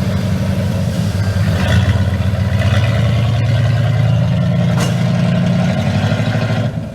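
Off-road vehicle's engine running under load; the revs rise about two seconds in, hold steady, then ease off near the end.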